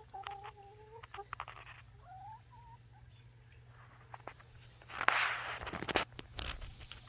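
Hens calling, a held call at the start and a short rising call about two seconds in, with sharp clicks of pecking at the ground close by. A loud rustling burst comes about five seconds in.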